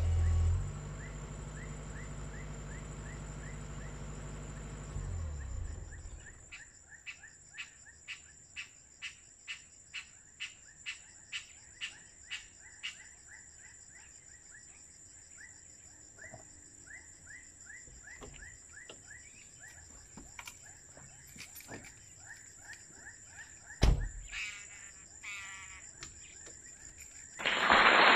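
The Caterpillar 305.5E2 mini excavator's diesel engine idles with a steady low hum, then shuts off about five seconds in. After that, a frog calls in a regular series of short croaks, about two a second, over a steady high insect whine. Near the end there is one sharp knock, and just before the end a loud rush of hiss sets in.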